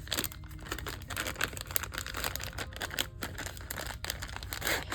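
Plastic packaging crinkling and rustling as it is handled and opened, with many small irregular crackles.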